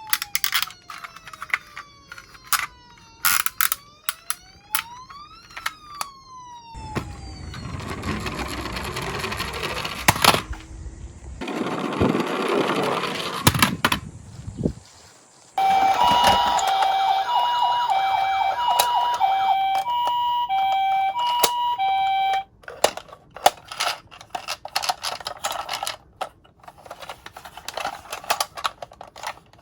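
Toy ambulance's electronic siren sounding a two-tone hi-lo pattern, alternating between a higher and a lower note for about seven seconds. Before it come sharp plastic clicks, sliding whistle-like tones that fall and rise, and a noisy rumbling rattle; after it, more scattered clicks.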